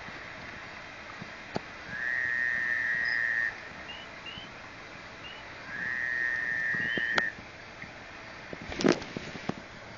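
Two steady, high whistled notes of about a second and a half each, alike in pitch, with a few faint short chirps around them. A brief sharp knock near the end is the loudest sound.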